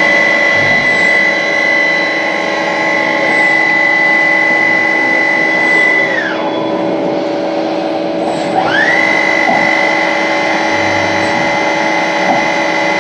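CNC lathe running with a steady high whine over a lower machine hum. About six seconds in the whine glides down and stops as the spindle slows, and about two and a half seconds later it rises back up as the spindle spins up again.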